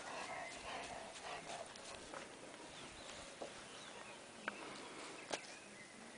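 Faint outdoor garden ambience with a few soft, short clicks or rustles, about three and a half, four and a half and five and a half seconds in.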